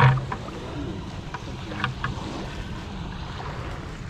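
Lake waves washing against the shore, with wind buffeting the microphone. A loud bump comes right at the start, and a few small clicks follow.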